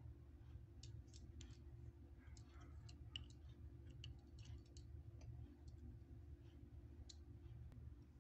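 Faint scattered clicks and taps of a miniature glass being handled against small steel bowls, over a low steady hum.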